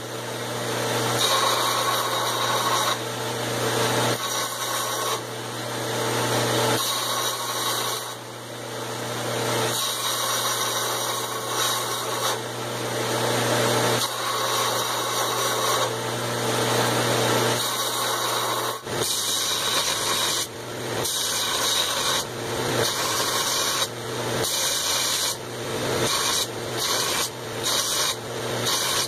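Belt grinder running with a forged steel hammer head pressed against the belt, a steady grinding hiss over the motor hum that swells and dips as the faces and sides are ground clean. In the last ten seconds the grinding comes in short passes, about one a second.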